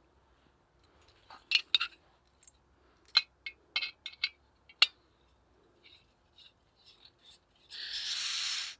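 Several sharp metal clicks and clinks, then one hissing scrape of about a second near the end: a knife's back being struck down a ferrocerium fire steel to throw sparks. The jackknife does not work well as a striker.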